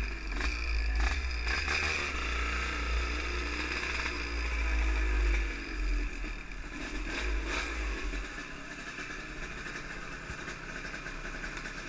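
Two-stroke motorcycle engine running while the bike is ridden, with a low wind rumble on the microphone. The rumble dies away about eight seconds in and the sound grows quieter.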